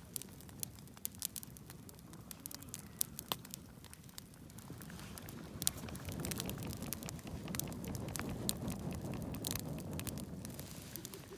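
Wood campfire crackling, with many sharp, irregular pops and snaps over a low rumble that swells about halfway through.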